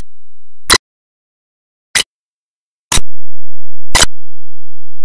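Sharp, short ticks or clicks, about one a second, with silence between them.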